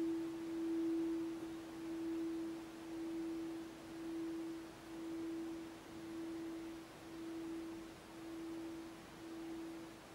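A Tibetan singing bowl ringing on after being struck: one clear, steady tone that pulses about once a second and slowly fades.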